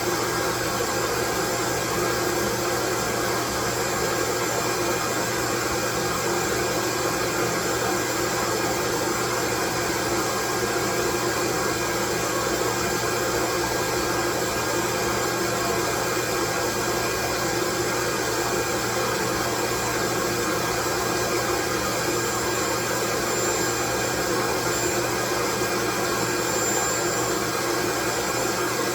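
Loud, steady white noise that never changes, with a few faint steady tones running through the hiss.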